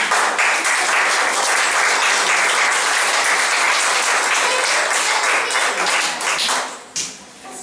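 Applause: many hands clapping steadily, dying away about seven seconds in.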